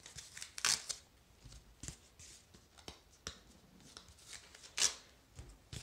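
Masking tape being picked at and peeled off a corrugated cardboard mailer: short scratchy rips and fingernail scrapes on the cardboard. The sharpest rips come about two-thirds of a second in and again near the end.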